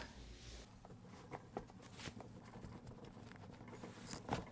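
Faint scattered clicks and light taps from handling a wooden chair during disassembly, with one slightly louder knock near the end.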